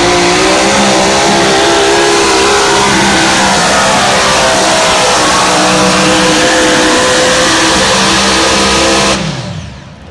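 A tractor-pull puller's engine running flat out, very loud, its pitch wavering as it works under load. Near the end the engine drops off, its pitch falling and the sound fading quickly.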